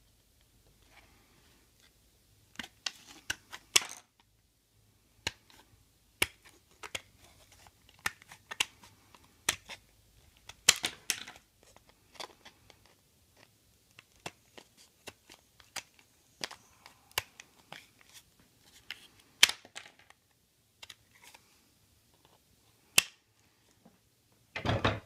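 Tin snips cutting through sheet Kydex: a run of sharp snips and crunches at uneven intervals, some in quick clusters, as the jaws bite through the stiff plastic. A louder bump comes just before the end.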